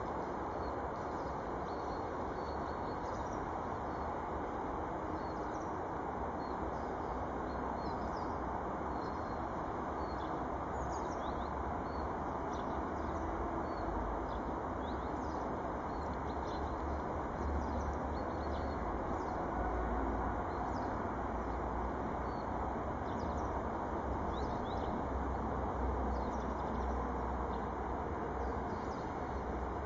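Small birds chirping, many short high chirps scattered throughout, over a steady outdoor background noise with a low rumble.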